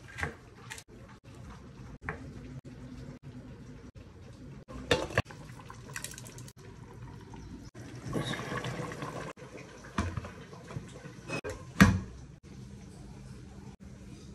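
Kitchen handling sounds while steaming couscous in a stainless steel couscoussier: scattered sharp metal knocks as the steamer basket, pot and ladle are handled, the loudest near the end. About eight seconds in, a short stretch of hissing as the basket sits over the pot.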